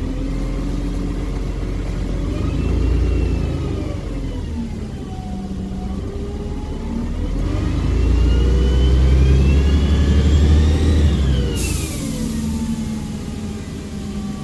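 Volvo Olympian double-decker bus accelerating, its engine note and high turbo whistle rising and falling twice as it climbs through the gears. A sudden hiss of air comes near the end.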